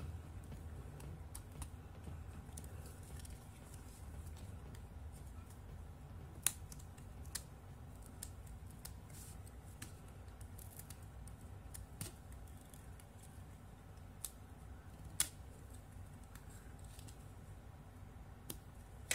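Small, scattered plastic clicks and scratches as fingers pry and pick at a small phone battery's casing, a few sharper snaps standing out, over a steady low hum.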